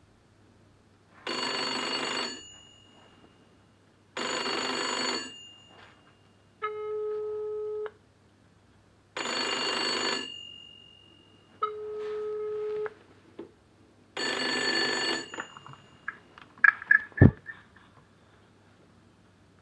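Rotary telephone's bell ringing in four bursts of about a second each, for an incoming call from a mobile phone. Between the rings the mobile's ringback tone beeps twice from its loudspeaker. Near the end the ringing stops and the handset is lifted off the cradle, with a few clicks and a knock.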